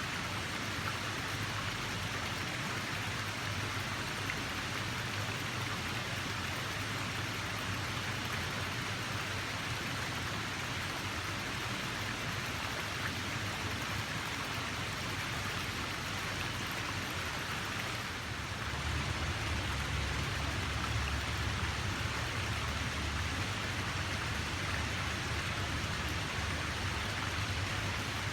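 Running water rushing steadily, a constant hiss with no breaks. About eighteen seconds in it dips for a moment, then a deeper low rumble joins for about five seconds.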